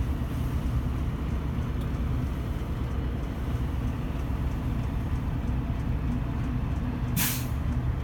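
Steady low mechanical rumble, like a vehicle running nearby, with one short, sharp hiss of air about seven seconds in.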